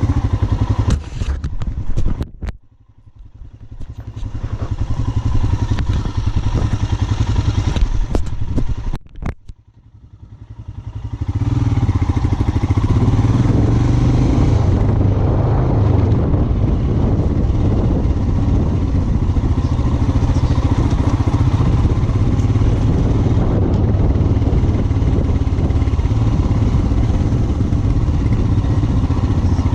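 Motorcycle engine running during off-road riding. Twice it falls away sharply for a second or two before picking back up, then it runs on steadily and loud.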